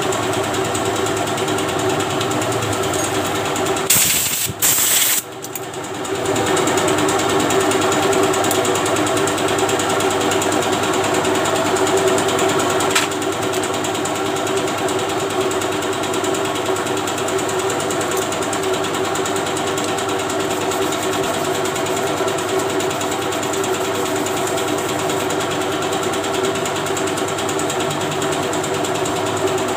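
A machine motor running with a steady, even drone, interrupted about four seconds in by two short, loud hissing blasts.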